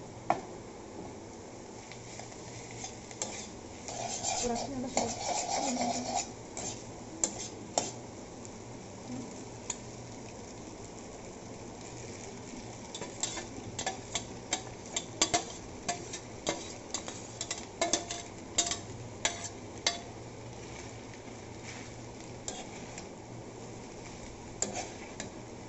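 A spatula stirring and tossing boiled instant noodles with shredded cabbage in a wok over a steady frying sizzle. The utensil clicks and scrapes against the pan many times, most often past the middle.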